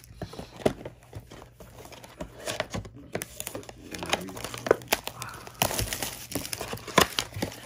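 A cardboard trading-card box being torn open by hand: crinkling packaging and tearing cardboard, a run of irregular clicks and crackles that grows louder and busier in its later part, with a sharp snap about seven seconds in.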